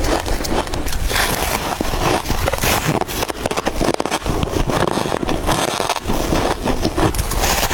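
Close-up biting and chewing of soft freezer frost, a dense run of crunching crackles and scrapes.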